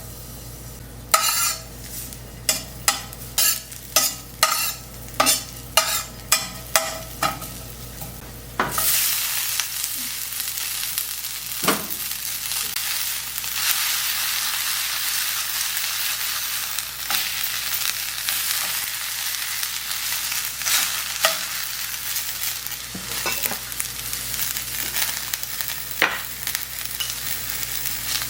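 A knife chopping on a cutting board, about a dozen strokes, then about nine seconds in food goes into hot oil and sizzles steadily, with an occasional knock of a utensil stirring the pan.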